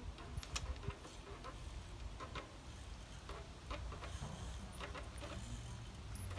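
Sparse, irregular clicks from a mountain bike's rear freewheel hub ratcheting as the bike rocks back and forth in a trackstand, over a low steady rumble.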